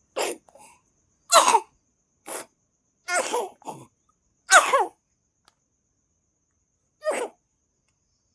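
A person coughing hard in a string of about six separate coughs, some coming as quick doubles, with pauses of about a second between them and a longer gap before the last one near the end.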